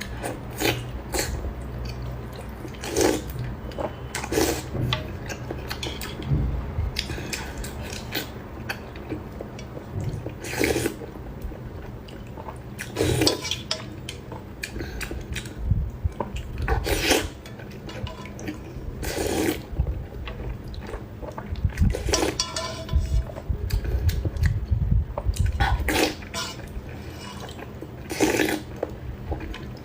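Close-miked eating: wet slurps and chewing of saucy noodles in short bursts every second or two, with a few clinks of utensils on the dish.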